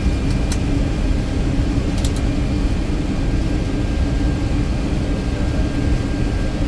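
Steady low rumble of a Boeing C-17 Globemaster III's four Pratt & Whitney F117 turbofan engines running, heard inside the cockpit, with a faint steady whine above it. A few light clicks come about half a second in and again about two seconds in.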